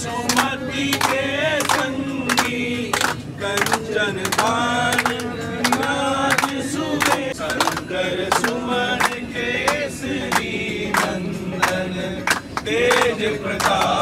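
A group of train passengers singing a Hindu devotional chant together in chorus, clapping in a steady beat.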